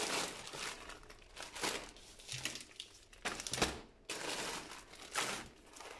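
Plastic food packaging crinkling and rustling as wrapped packs of groceries are picked up and moved about, in several short irregular bursts.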